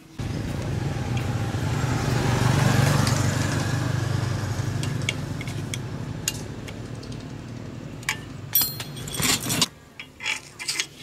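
Electric grinding machine's motor switching on suddenly and running steadily. It is loudest a couple of seconds in, eases off slowly, and then stops abruptly, followed by a few sharp clicks and knocks near the end.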